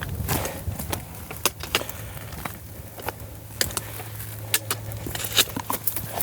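Footsteps crunching and clicking on loose rock and gravel, in an uneven walking rhythm, over a steady low hum.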